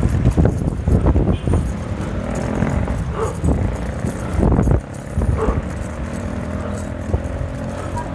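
Wind buffeting the microphone and tyre rumble while riding a bike along a road, with uneven knocks from bumps in the surface.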